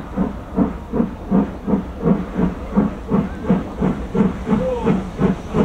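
Steam locomotive working under steam, its exhaust beating evenly at about three beats a second.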